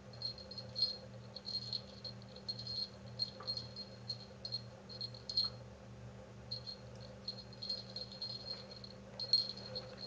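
A small jingle bell hanging from a coil-spring toy jingles in short, irregular bursts as a kitten paws and swats at it. The loudest jingle comes near the end.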